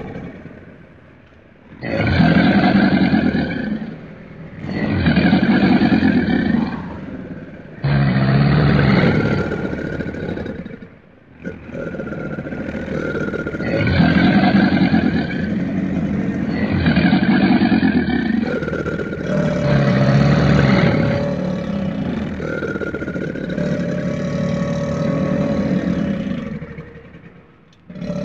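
Nile crocodile bellowing: a series of deep, raspy roars about two seconds each, seven or so in a row, the later ones following almost without pause.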